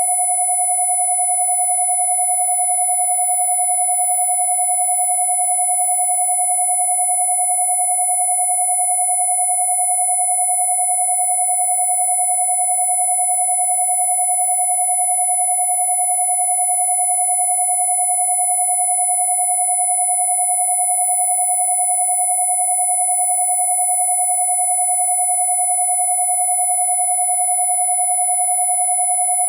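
Two steady electronic sine tones sounding together without any change: a mid-pitched 727 Hz tone and a high 10,000 Hz tone.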